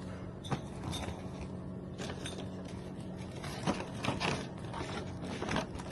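Irregular light clicks and taps, as of small hard objects being handled, over a steady low hum.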